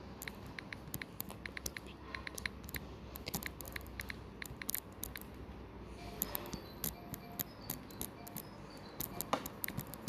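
Quick, irregular taps of typing on a smartphone's touchscreen keyboard, several a second, thinning out to fewer, spaced taps after about six seconds.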